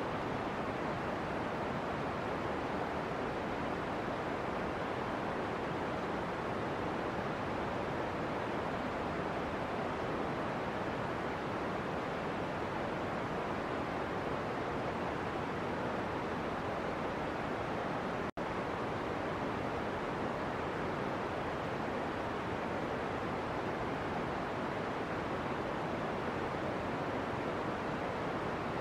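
Steady, even rushing noise with no pitch or rhythm, cut off for a split second about eighteen seconds in.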